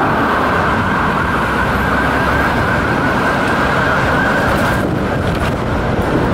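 Fire engine siren warbling rapidly over a steady rumble of traffic. The siren's higher tones drop away about five seconds in.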